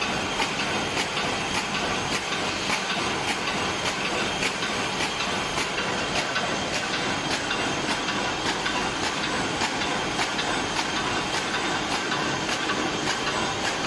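Paper lunch-box and hamburger-box erecting machine running at speed: a steady mechanical clatter with regular clicks a few times a second over a hiss.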